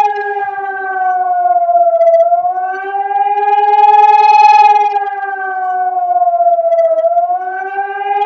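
Civil defence siren wailing loudly in a siren test. Its pitch and volume sink and swell in a slow wave, dipping twice, about every five seconds.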